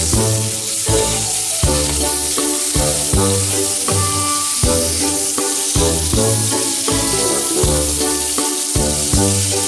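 Thin beef slices sizzling in melted fat on a hot grill plate, under background music with a steady beat.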